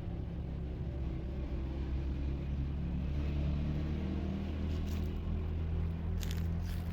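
A motor running steadily with a low hum, with a few short clicks near the end.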